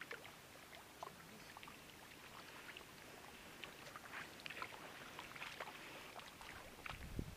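Faint, scattered patter of many small vendace splashing and flicking at the water's surface, crowded inside a seine net. A low bump comes near the end.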